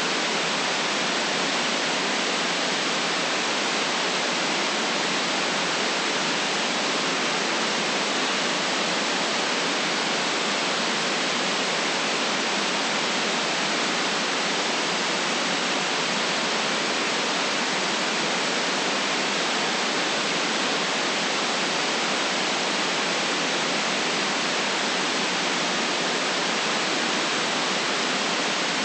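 Steady electronic white noise: an even, unchanging hiss with no deep bass and no highest treble.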